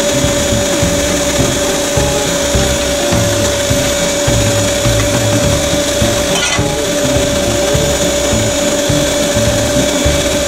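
Unold 8810 electric meat grinder's motor running steadily with one constant whine, pushing sausage meat through the stuffing horn into the casing.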